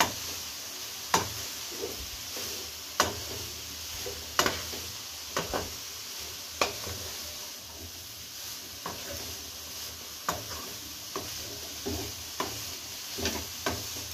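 Spatula stirring grated carrots frying in ghee in a nonstick kadhai: sharp knocks of the spatula against the pan about once a second, over a steady sizzle. The knocks grow fainter in the second half.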